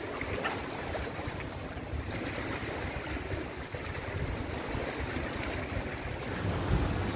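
Steady wind noise on the microphone over small waves washing in shallow seawater.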